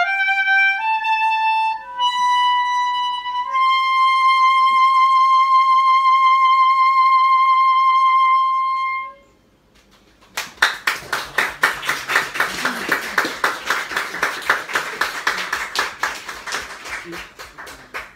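Unaccompanied soprano saxophone playing a short descending-and-rising phrase, then holding one long final note for about five seconds before stopping. After a second's pause, applause breaks out and runs on to the end.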